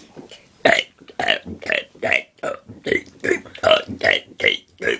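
A girl burping out a rapid string of short burps, about three a second, speaking letters of the alphabet through them.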